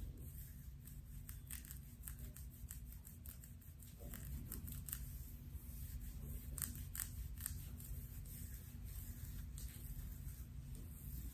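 Long acrylic fingernails scratching through short hair on a scalp, in quick, uneven scratching strokes over a low steady rumble.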